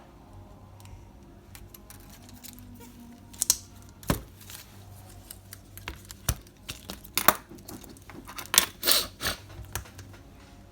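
Small sharp clicks and taps of hands and a tool working on an opened tablet's internals as its flex cables are unclipped from their connectors, a handful of irregular clicks with a cluster near the end, over a faint steady low hum.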